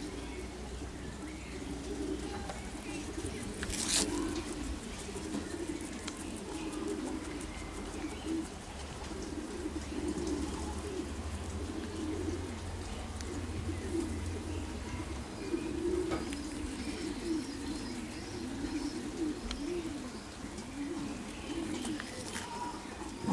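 Pigeons cooing continuously in the background, several calls overlapping. A single sharp click sounds about four seconds in.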